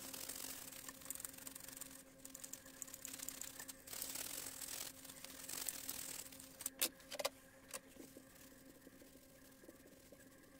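Small brush scrubbing an alcohol-wetted circuit board to wash off solder flux: a scratchy hiss in uneven strokes for about six seconds, then a few sharp clicks and quieter wiping. A faint steady hum runs underneath.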